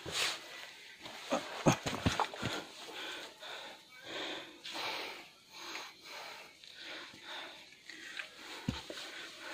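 Heavy, rhythmic breathing of a hiker, one breath about every 0.7 seconds, out of breath from climbing over fallen logs on a steep trail. In the first two seconds or so there are several sharp knocks and scuffs of boots and hands on the logs.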